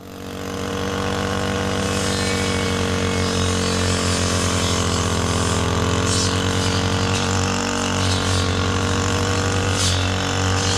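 Small engine of a brush cutter running steadily at working speed, with a couple of brief higher hisses.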